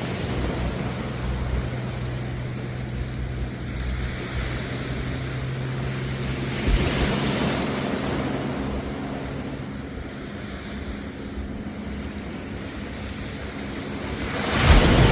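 Waves washing onto the beach, swelling louder about halfway through and again near the end, with a steady low engine hum underneath that fades out partway through.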